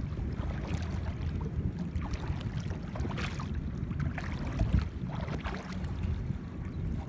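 Wind rumbling steadily on the microphone over open water, with a few brief splashes as a long paddle is pushed into the shallows to move a small homemade pontoon boat.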